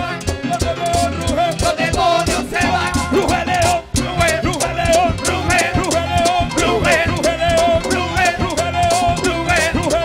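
Upbeat music with a fast, steady drum beat, briefly dropping out about four seconds in.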